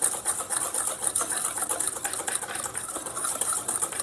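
Wire whisk beating a dry flour mix in a stainless steel bowl: a fast, steady run of scratchy ticks as the wires strike and scrape the metal.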